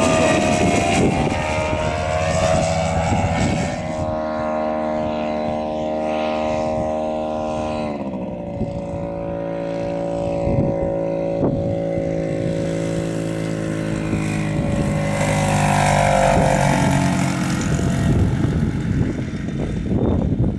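Sherwood Kub light aircraft's propeller engine droning steadily in flight, its pitch dropping clearly about eight seconds in as it comes in on approach to land.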